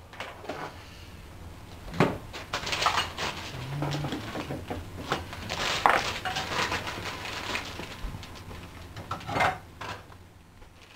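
Irregular knocks, taps and clatter of objects being handled over a faint steady low hum, the loudest knocks about two, six and nine seconds in.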